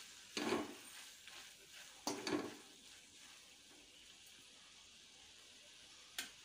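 Metal spoon stirring spiral pasta and vegetables in a metal kadai: two scraping strokes in the first few seconds. A faint sizzle of the food frying follows, with a short tap near the end.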